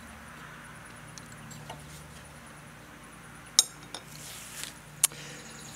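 A few sharp metallic clinks as parts are handled on a riding-mower deck, the two loudest about three and a half and five seconds in, over a faint steady low hum.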